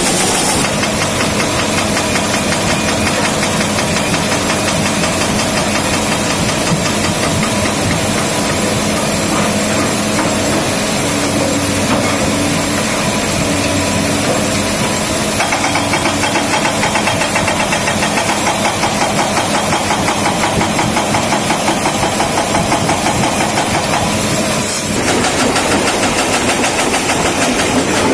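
Hydraulic breaker on a Caterpillar excavator hammering stone masonry in rapid, steady blows, over the excavator's diesel engine running under load.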